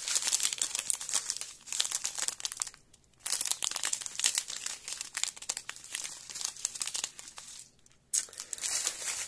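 Small plastic bags of diamond-painting drills crinkling as they are handled and sorted, in bursts with two brief pauses, about three seconds in and near the end.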